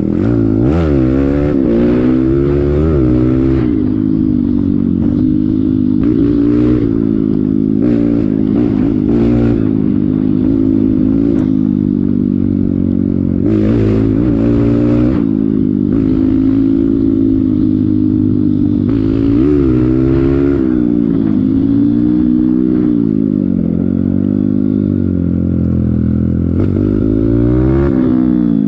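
Dirt bike engine running under way, its pitch rising and falling again and again as the throttle is worked and gears change. A few brief bursts of noise cut across it, the strongest about halfway through.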